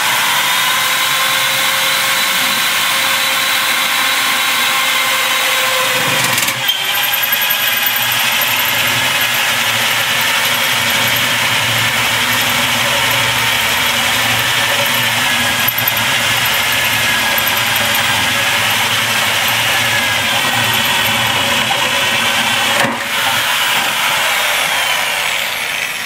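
Electric drill running an ALFRA MBS carbide-tipped (TCT) hole saw with a bullet-point pilot drill, cutting a hole through stainless steel sheet. The motor whine is steady and loud, with brief dips about six seconds in and again near the end.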